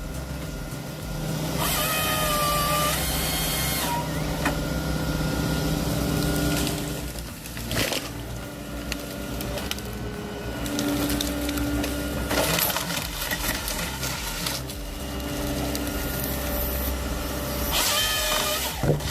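Timber harvester at work: its diesel engine runs steadily under load, with hydraulic whines that rise and fall in pitch as the head works.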